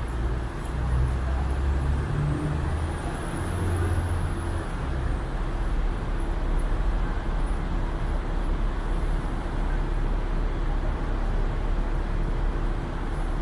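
City street traffic noise, a steady wash of passing vehicles, with a heavy vehicle's low engine rumble that is loudest in the first few seconds and then fades. A faint high whistle rises and falls about three to five seconds in.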